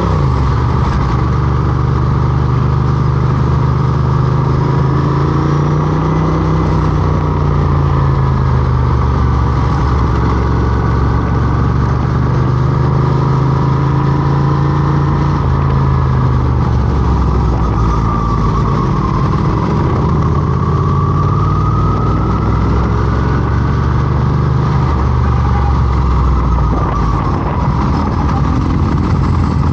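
Motorcycle engine running while riding, its pitch rising and falling as the throttle opens and closes, with a drop around the middle and a climb again later on.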